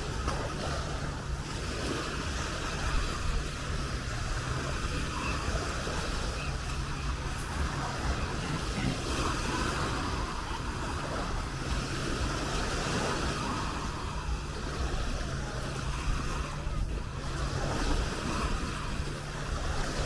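Beach ambience: small waves breaking and washing up on the sand in a steady wash, with wind rumbling on the microphone and faint voices of beachgoers in the background.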